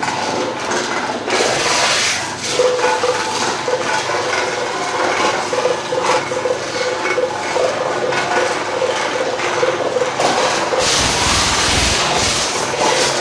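Twin-shaft shredder running, crunching and tearing plastic water bottles and aluminium drink cans, with a steady wavering hum under the crackle. About eleven seconds in comes a louder, heavier crunch with a deep rumble.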